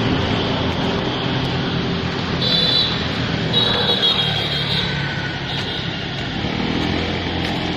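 Road traffic: a motor vehicle's engine running close by over steady street noise, its pitch rising near the end. Two brief high-pitched tones sound around the middle.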